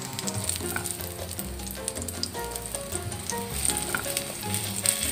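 Garlic sizzling in a little oil in a nonstick frying pan, stirred with a silicone spatula that taps and scrapes against the pan, over soft background music.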